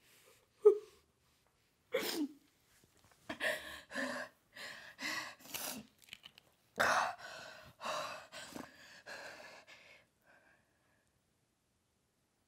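A woman sobbing with her hand over her mouth. A sharp, loud sob comes about half a second in, then a run of short gasping breaths that dies away about ten seconds in.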